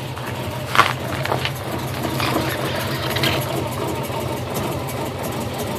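2002 Subaru Impreza WRX's turbocharged flat-four engine idling with a rough idle and misfire. A sharp click stands out just under a second in.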